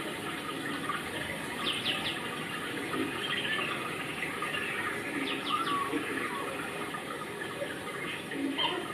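Steady outdoor background hiss, with brief clusters of short high chirps about two seconds in and again around five and a half seconds in.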